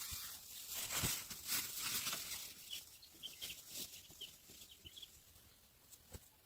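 Dry corn leaves and husks rustling and crackling as ears are handled, loudest in the first couple of seconds and thinning out, with a few faint, short, high chirps in the middle and a single sharp snap near the end.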